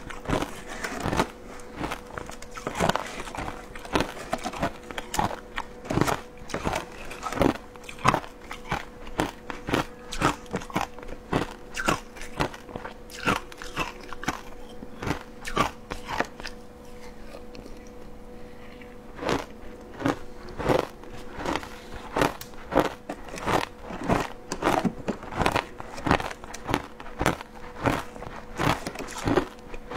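Close-miked crunching and chewing of matcha shaved ice: a quick run of crisp crunches, pausing for about two seconds a little past halfway, over a faint steady hum.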